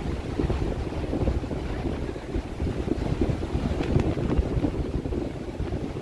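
Strong gusty wind buffeting the microphone with an uneven low rumble, over the wash of surf breaking on the beach.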